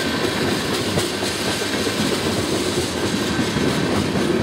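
Freight train tank cars rolling past at close range, steel wheels running on the rails with a steady, even noise.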